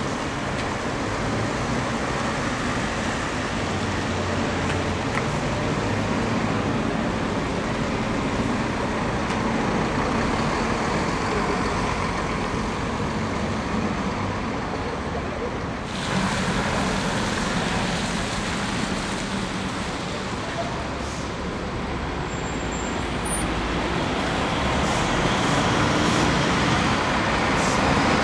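Town-centre traffic with bus engines running as buses pull through a junction on a wet street. Near the end a First single-decker bus passes close by and its engine grows louder.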